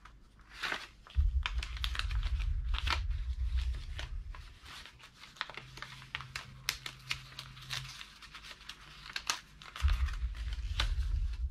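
Paper envelope being worked open at its wax seal: scattered paper crinkling, rustling and small clicks. A low rumble of handling noise comes in about a second in and again near the end.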